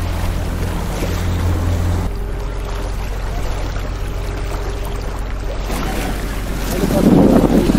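Outrigger boat's engine running steadily under wind and rushing water, its low hum changing about two seconds in. A louder buffet of wind on the microphone near the end.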